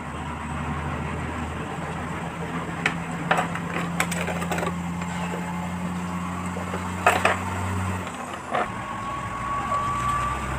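Small plastic containers being handled, giving a few sharp clicks and taps over a steady low mechanical hum.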